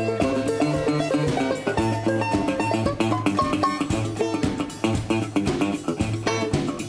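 Background music: an instrumental played on plucked strings, guitar over a steady bass line.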